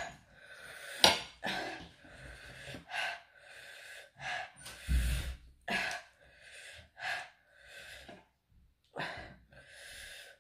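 Repeated short, hissing breaths drawn in and out through the mouth by someone eating very hot, chilli-laden food, about one or two a second, with a sharp click about a second in and a dull thump midway.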